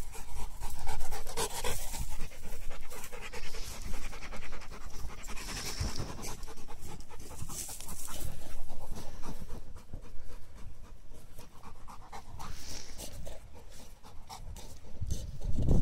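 A dog panting close by, in quick repeated breaths.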